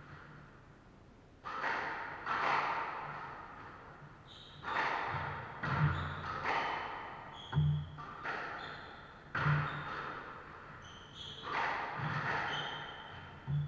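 Squash rally: the ball cracking off rackets and walls about every two seconds, each shot ringing through the enclosed court, with thuds and short sneaker squeaks on the wooden floor between shots.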